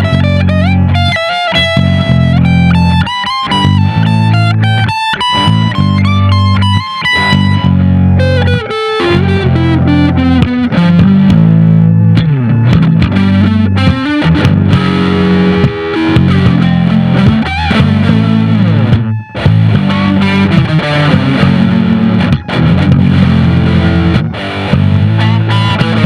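Overdriven electric guitar playing a minor blues lead in A, with sustained notes and string bends over a steady low rhythm accompaniment.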